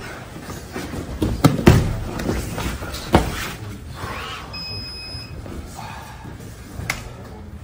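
Thuds of grapplers' bodies and hands landing on padded jiu-jitsu mats during a sparring roll, with sharp thumps about a second and a half in, again just after, around three seconds in, and once near the end.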